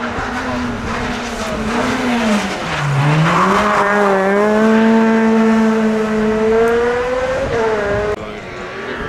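Ford Fiesta rally car engine at full attack. Its note drops as it slows for a bend about two and a half seconds in, then climbs and is held high as it powers through the corner. Tyres scrabble on loose gravel as the car slides.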